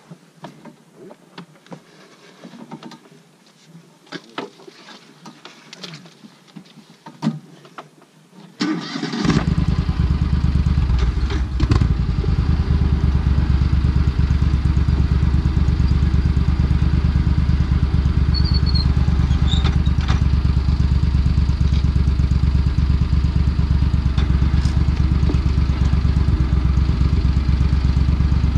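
Argo amphibious ATV's engine starting about nine seconds in and then running steadily. Before it, scattered light knocks and handling noises.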